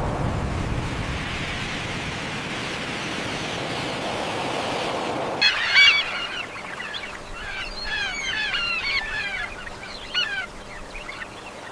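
A steady rushing noise for about five seconds, then a group of birds calling: many short, arched calls in quick runs, loudest just after they begin and thinning out near the end.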